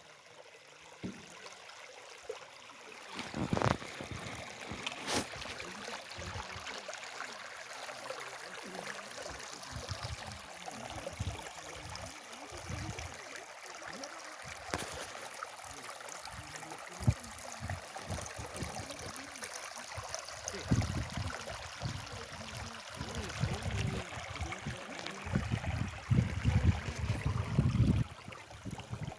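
River water flowing and trickling in a steady rush, with a few sharp clicks, and low rumbles over the last several seconds.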